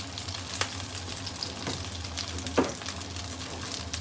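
Gyoza sizzling in hot oil in a frying pan, a steady hiss with small crackles: the final crisping stage, with sesame oil just poured around them after the steaming water has cooked off. A single sharp clack about two and a half seconds in.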